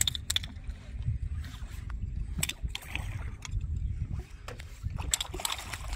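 Water lapping against a small fishing boat's hull under a steady low rumble, with scattered sharp clicks and knocks.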